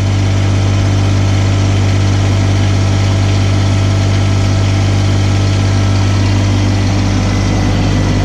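Kubota BX1860 compact tractor's three-cylinder diesel engine idling steadily while it warms up.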